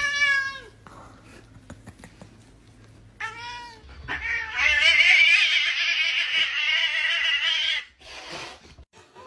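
Domestic cat meowing: a short falling meow at the start, another short meow about three seconds in, then one long drawn-out meow of about four seconds.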